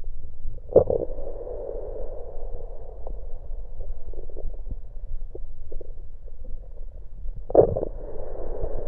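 Stomach gurgling after a drink of cola, picked up through an electronic stethoscope pressed to the belly: a continuous muffled bubbling, with two sharp louder gurgles, one about a second in and one near the end.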